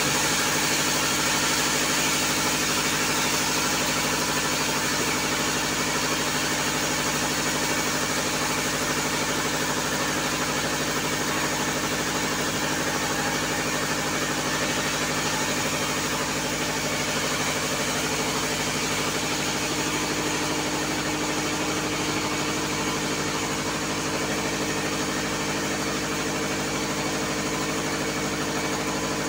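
Bandsaw mill running steadily: a constant mechanical hum of several fixed pitches with a hiss over it, with no distinct cuts or impacts.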